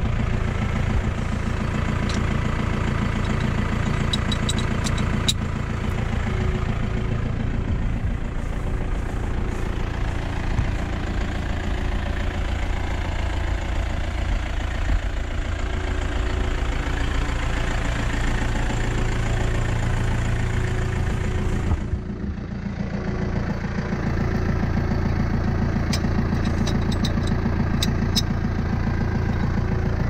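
Case IH Farmall 75 C tractor's diesel engine idling steadily, with a few light clicks and a short dip in level about two-thirds of the way through.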